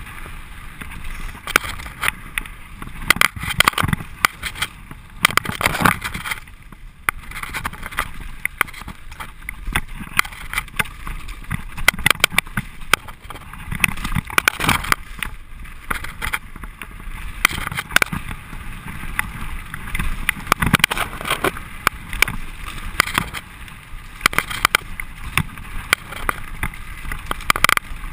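Mountain bike clattering down a rough dirt-and-stone trail at speed: tyres crunching over loose ground and the frame and parts rattling, a dense run of irregular knocks over a continuous rushing noise.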